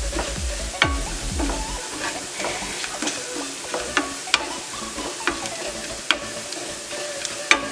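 Chopped coconut, ginger and garlic sizzling in coconut oil in a non-stick frying pan, stirred with a wooden spatula that knocks and scrapes against the pan in irregular sharp clicks about once a second.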